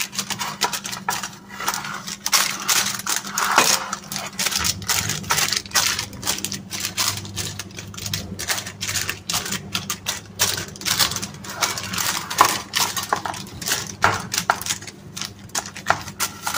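Rapid, irregular clicks and crinkling of butter paper as hands press bread dough into a paper-lined loaf tin. A steady low hum runs underneath.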